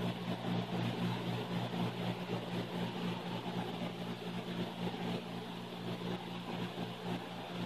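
Steady low hum with an even hiss of background room noise, unchanging throughout.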